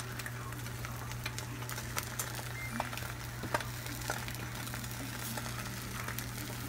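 Eggs frying in a hot skillet, a steady sizzle with scattered small pops and crackles.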